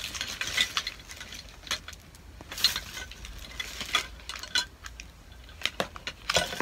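Small objects being handled on a table: irregular light clicks and clinks with short rustling bursts.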